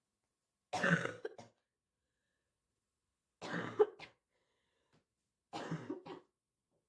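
A sick, feverish girl coughing in three fits about two and a half seconds apart, each a harsh cough followed by a shorter one.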